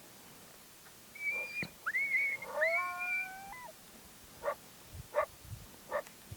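Coyote vocalizing: about a second in, a couple of seconds of high, wavering howl notes with several pitches overlapping, followed by three short barks spaced under a second apart.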